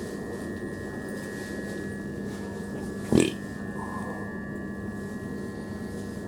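Steady electrical hum with a high, level whine from a Southern Class 377 electric train standing at the platform, with one brief, louder sound about three seconds in.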